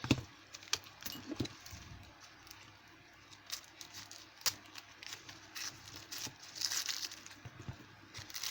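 Parcel packaging crinkling and rustling as it is handled, with scattered light clicks and knocks and one sharp knock at the start.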